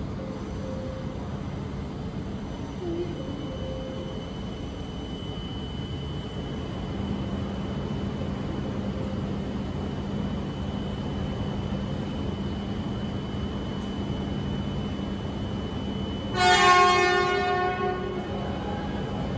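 Steady low hum under a faint high steady tone, then about sixteen seconds in one loud blast of an E4-series Max Toki Shinkansen's horn lasting about a second and a half as it departs.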